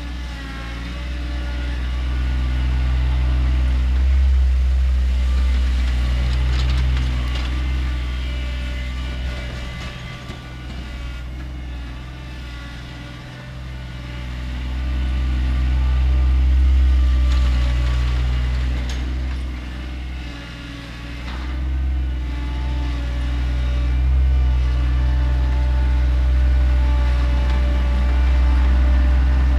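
John Deere 2025R compact tractor's three-cylinder diesel engine running, its level rising and falling several times as the engine speed or load changes.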